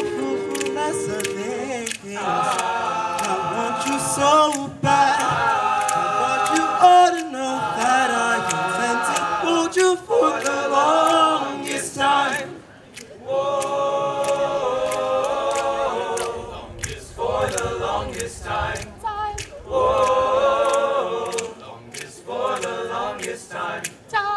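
Men's a cappella group singing a song in close harmony, with a male soloist at the front microphone over the group's held chords. The singing drops away briefly about halfway through, then carries on.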